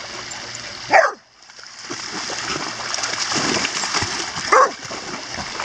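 Dogs splashing and wading through shallow water, with a dog barking twice: once about a second in and again near the end.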